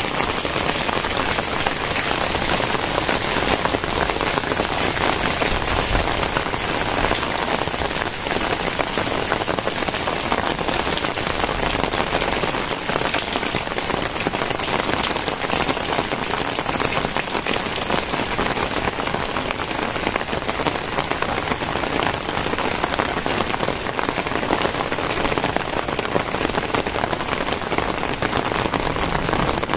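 Very heavy rain pouring down steadily, a dense unbroken hiss of drops striking surfaces.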